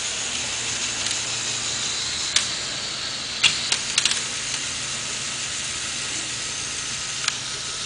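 LEGO Technic logging truck's small electric motors and gears running with a steady whir as the crane arm is raised, with a few sharp clicks from its switches and mechanism.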